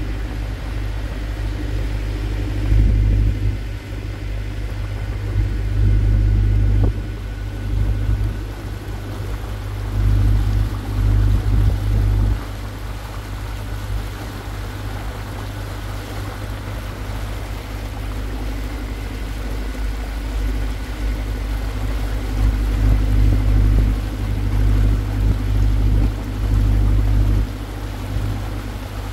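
Small water taxi under way, its engine running with a steady low rumble that swells louder several times.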